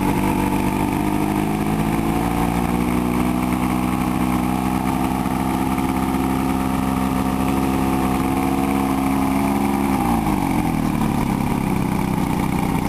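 1971 Mercury 135 hp inline-six two-stroke outboard running, its engine speed creeping slowly up for about nine seconds, then dropping sharply back to a lower idle about ten seconds in.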